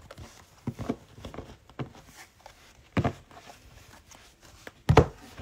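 Trading cards in rigid plastic holders being handled and squared into a stack: scattered light plastic clicks and rustles, with two louder knocks, about three seconds in and near the end, as the stack is tapped on the table.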